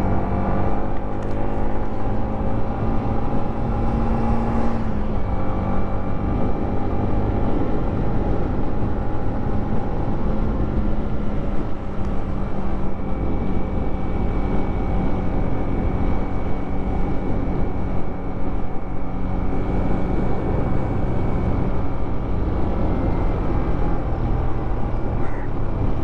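Yamaha MT-15's single-cylinder engine running under way, heard from the rider's seat over steady wind and road noise. The engine pitch steps down about five seconds in, then holds steady.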